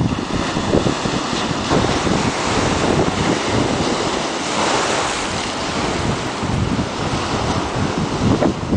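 North Sea waves breaking and washing against a sloping stone seawall: a continuous rush of surf, with a louder crash about halfway through. Wind buffets the microphone with a low rumble.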